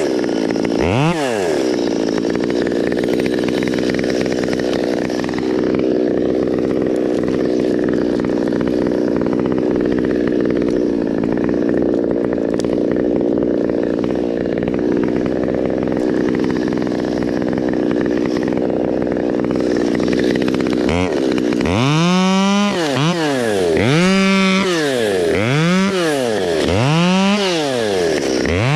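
Chainsaw briefly revved, then held at full throttle for about twenty seconds while cutting through dead cedar, then revved up and down repeatedly, about once every second and a half, near the end.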